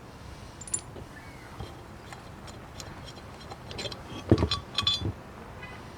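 Metal parts of a power steering pump clinking and knocking as they are handled. There is a single click with a short high ring early on, then a cluster of sharper knocks about four to five seconds in, the loudest with a dull thud.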